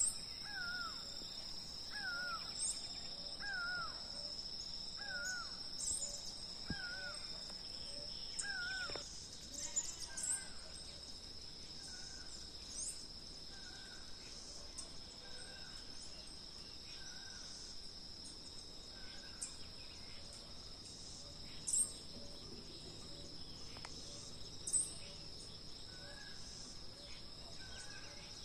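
Rural morning birdsong: one bird repeats a short downward call over and over, less than a second apart, loud for the first third and then fainter, while other birds add sharp high chirps. A steady high insect drone runs underneath.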